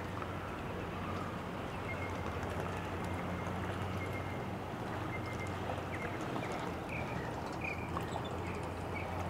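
A steady low engine hum, with a few short bird chirps, two near the start and several more near the end.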